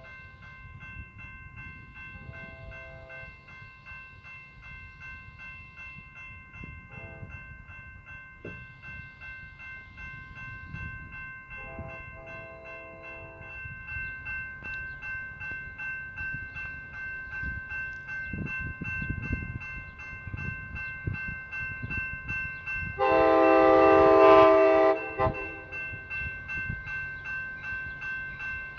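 Amtrak California cab car's Nathan K5LA five-chime horn sounding for a grade crossing: a few shorter blasts, then one long, loud blast about three-quarters of the way through. Under it, a crossing bell dings steadily and the approaching train rumbles low.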